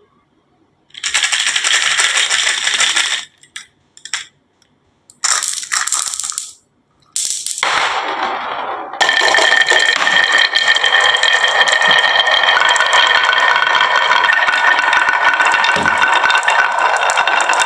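Marbles rolling and clattering down a HABA marble run, in three short runs. From about nine seconds in, a continuous rattle with a steady ringing tone takes over.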